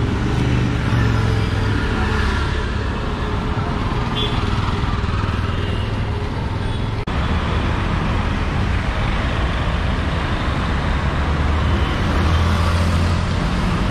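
Street traffic: a steady mix of passing motor vehicles, including three-wheeled auto-rickshaws, with a low engine rumble. There is a sudden break about halfway through, and a heavier vehicle rumbles by near the end.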